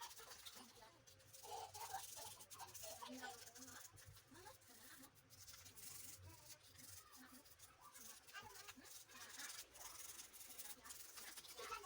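Faint scratchy rubbing of a toothbrush scrubbing a plastic washing-machine lint filter, with small clicks and taps.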